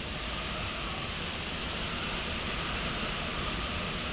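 Hurricane wind and heavy rain, a steady rushing hiss that holds at an even level with no distinct gusts or impacts.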